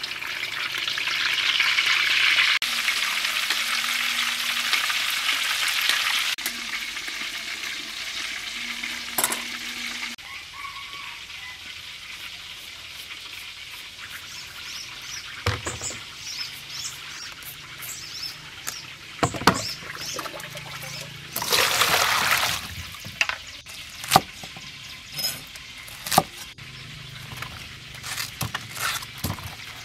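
Snakehead fish deep-frying in a large wok of hot oil: a loud, steady sizzle for about the first ten seconds, which then stops. After it come quieter sounds of vegetables being handled: scattered clicks and knocks, a brief burst of noise about two-thirds through, and water in a plastic bowl near the end.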